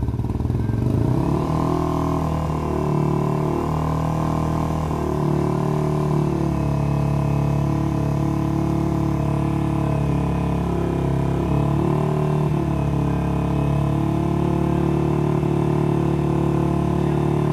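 Yamaha Y15ZR motorcycle's 150cc single-cylinder four-stroke engine, fitted with an aftermarket MB Performance exhaust, revved up in the first second and then held steady at about 4,500 rpm for a stationary sound test. A sound level meter reads it at about 96 dB, within the 99 dB limit for machines over 125cc.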